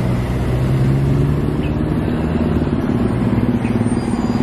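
A motor engine running nearby with a steady low hum, its pitch shifting slightly about halfway through.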